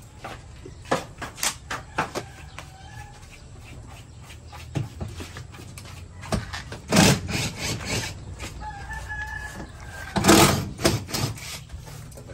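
Roosters crowing several times, the two loudest crows about seven and ten seconds in, with fainter crows between them. Scattered light knocks and clicks throughout.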